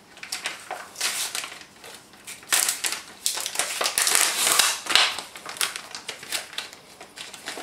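Thin plastic film being peeled off a sealed tray of sliced cheese, crackling and crinkling in irregular bursts, thickest in the middle.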